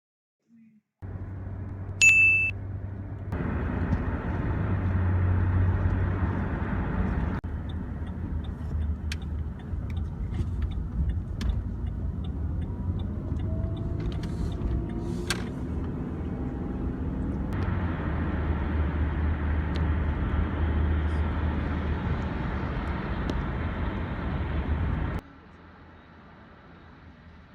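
Low, steady rumble of a road vehicle driving, in several spliced clips that start and stop abruptly. A short, high beep comes about a second after the sound begins.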